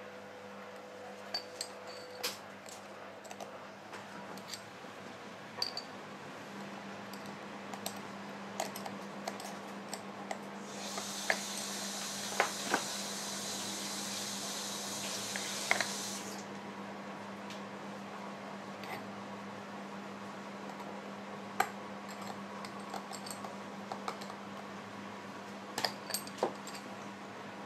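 Small metallic clicks and scrapes of a steel pick working in a Shimano BB-52/51 Hollowtech II bottom bracket cup and its cartridge ball bearing, with a few sharper metal knocks near the end. A steady hiss runs for about five seconds in the middle.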